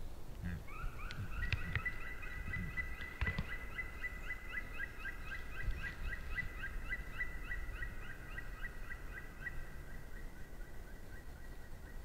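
A bird calling in a long, fast trill of evenly repeated notes, about four a second, held for roughly eleven seconds. A few soft low thuds come in the first three seconds.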